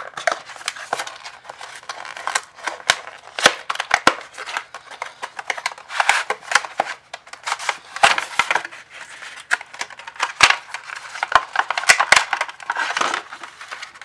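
Small cardboard SSD retail box being opened by hand: cardboard and paper rustling and scraping, with many small clicks and taps as the sleeve, paper inserts and plastic tray are pulled out and handled.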